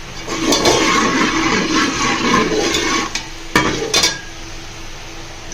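Chopped onions going into hot oil with whole red chillies and whole garam masala, bursting into a loud sizzle that lasts about three seconds. Two sharp knocks on the pot follow.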